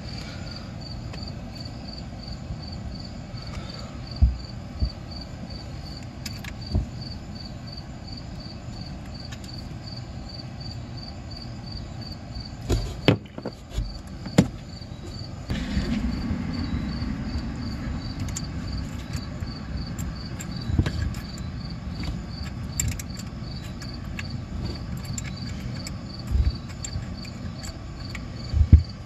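A cricket chirping steadily, about three to four chirps a second, under occasional sharp clicks and knocks of hand tools on metal as the snowmobile's oil injection pump is bolted in. There are a few seconds of louder noise about halfway through.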